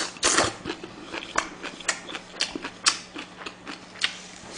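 Close-miked chewing of food: short, sharp crunching and wet mouth clicks at an uneven pace, about two a second, over a low steady electrical hum.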